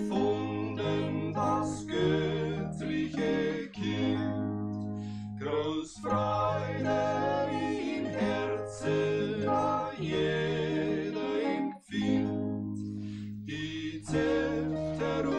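Three voices singing a Bavarian folk song together in harmony, over a plucked-string accompaniment.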